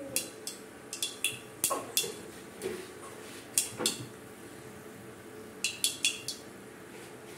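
Mustard seeds popping in hot oil in a kadai: sharp, scattered clicks in small clusters, some with a brief metallic ring, as the tempering for the chutney crackles.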